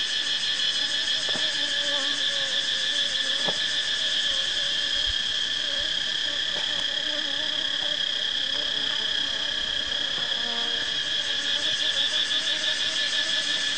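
Steady, high-pitched trilling of an insect chorus, with a fast even pulse. Under it runs a fainter wavering low buzz, and there are a few faint ticks from the knife working the comb.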